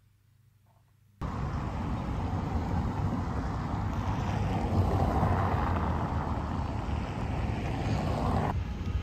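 Near silence for about a second, then city street traffic noise comes in abruptly: cars driving over a cobbled square, a steady rumbling wash of engines and tyres that thins a little near the end.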